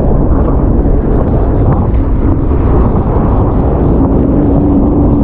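Sea-Doo jet ski running at speed over choppy sea, its engine drone buried in loud, steady wind noise on the microphone; the engine note steps up slightly about four seconds in.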